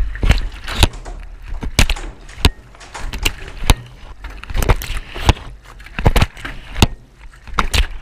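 Miele front-loading washing machine drum turning during a wash, with wet laundry tumbling inside. Irregular sharp knocks come several times a second over a low rumble.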